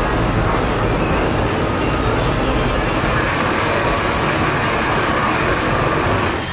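A loud, steady wall of dense noise from an electronic sound-art soundscape: a deep rumble with hiss spread over it.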